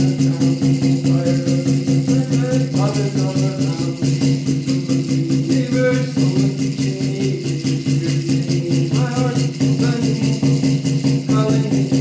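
A rawhide-laced hand drum beaten with a stick in a steady, fast beat, with a man's voice singing in short phrases over it.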